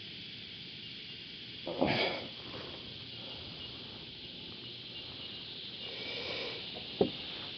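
Cicadas droning steadily in the trees, a high even buzz. About two seconds in there is a brief loud noisy burst, and near the end one sharp knock.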